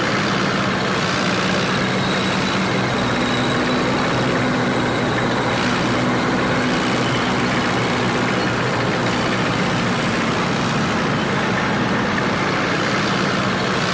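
Small four-wheeled vehicle's engine running steadily: a constant drone with a broad hiss over it, at an even level throughout.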